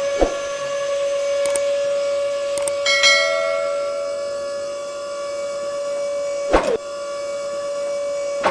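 Small electric motor running with a steady high whine, with a click and a brief dip in pitch about six and a half seconds in.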